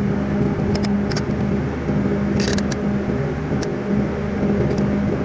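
Steady drone of a running engine, with a few sharp clicks and a short scraping hiss as a strap wrench is worked around a spin-on fuel filter.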